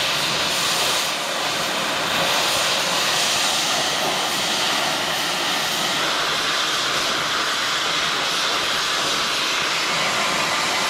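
Cutting torch hissing steadily as its flame cuts through steel, trimming off the remains of a bracket on a loader attachment frame.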